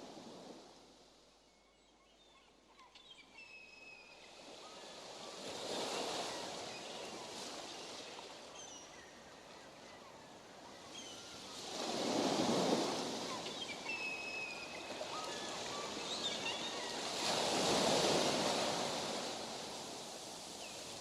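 Ocean waves washing in, swelling and falling back about every six seconds, with short high chirps scattered over the surf.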